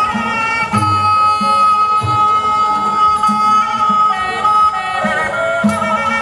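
Thai classical dance music: a melody instrument holds one long high note through the middle, over low drum strokes about once a second.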